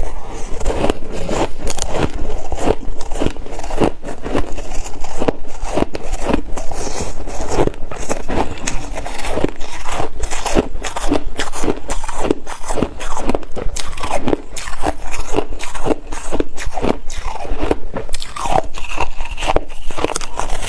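Ice being bitten and chewed close to the microphone: a run of crisp, irregular crunches, a few each second.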